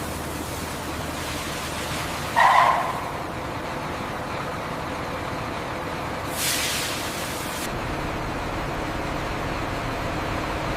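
Steady heavy-vehicle engine and road noise. About two seconds in comes a short, loud, pitched sound, and a little after six seconds a burst of hissing that lasts about a second.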